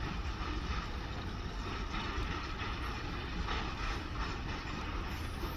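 Diesel-hauled freight train running by with a steady rumble and rolling rail noise; the horn is not sounding.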